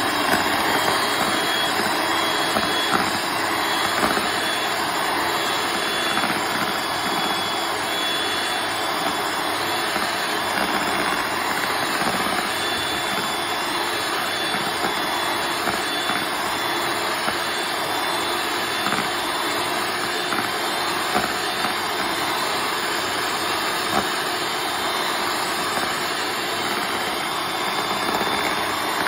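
Kenwood electric hand mixer running steadily, its twin beaters whisking a thick cream mixture in a plastic bowl: an even motor whir with a few faint ticks.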